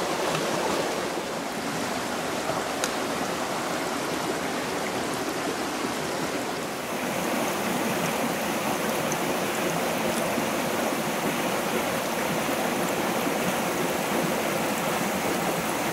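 A shallow rocky stream flowing steadily over stones, an even rushing of water.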